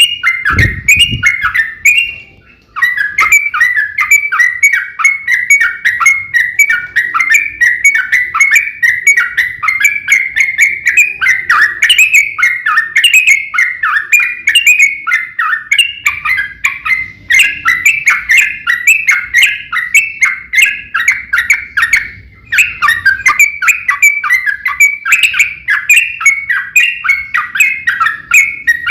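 Yellow-vented bulbul (trucukan) singing a long, rapid fighting song: a nonstop chatter of short notes, many a second, pausing briefly about two and a half seconds in and again around twenty-two seconds. A low thump sounds just after the start.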